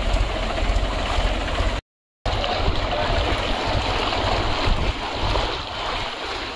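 Mahindra 265 DI tractor's diesel engine running with a low, even pulse as it wades through floodwater, water rushing and washing around it. The sound cuts out for a moment about two seconds in; after that the rushing of water is the loudest thing and the engine is fainter.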